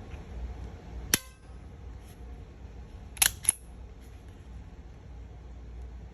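Three sharp metallic clicks from handling a Ruger LCP Max pistol. One clicks with a short ring about a second in, then two quick clicks follow about a third of a second apart a couple of seconds later.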